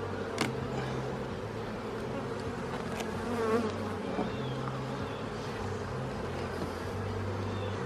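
Honeybees buzzing steadily in an opened hive, a calm colony humming at a low, even pitch. A couple of sharp clicks sound over the buzz, about half a second in and near three seconds.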